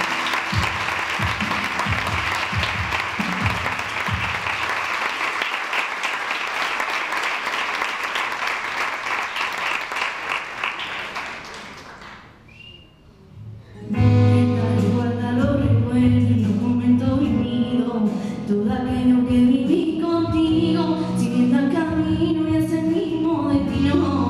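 Audience applause that fades out over about twelve seconds, then a brief hush. About fourteen seconds in, a musical backing track starts, and near the end a young female singer begins singing over it into a microphone.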